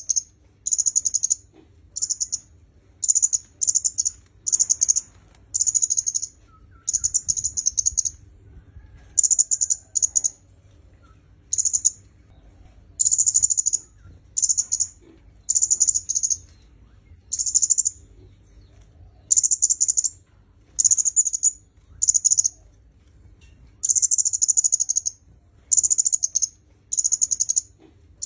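Kemade kepala merah, a small red-backed flowerpecker, repeating a short high-pitched chattering call over and over, about one burst every second or so with brief gaps between.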